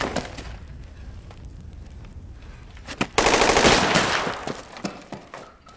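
Gunfire in a film battle scene: scattered single shots, then just past halfway a loud burst of rapid automatic fire lasting about a second, fading away afterwards.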